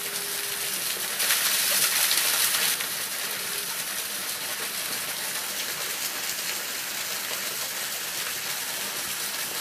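Water falling and splashing over rock at a small, partly frozen waterfall: a steady hiss, a little louder for a second or two near the start.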